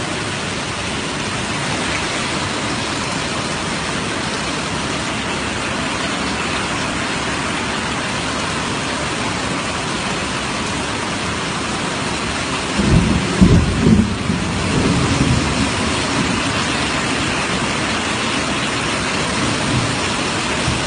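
Steady heavy rain hiss, with a short burst of loud, low rumbling about two-thirds of the way through.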